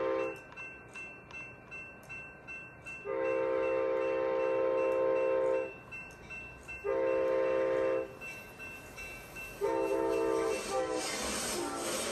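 Amtrak diesel locomotive's multi-chime air horn sounding a crossing signal as the train approaches: the tail of one blast, a long blast, a shorter one, then a final blast whose pitch drops as it passes. Rhythmic wheel clicks on the rails come between the first blasts, and the train's passing rush builds near the end.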